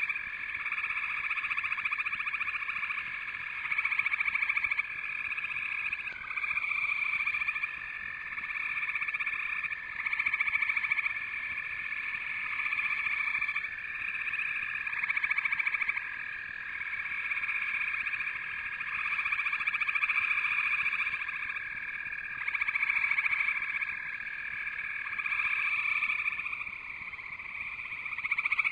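A dense chorus of calling frogs: a steady, shrill mass of calls that swells and ebbs every couple of seconds.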